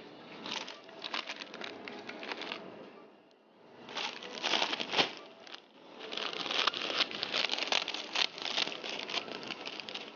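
Plastic packet of vermicelli crinkling as it is handled and opened, in three bouts of crackling, the last starting about six seconds in and running on.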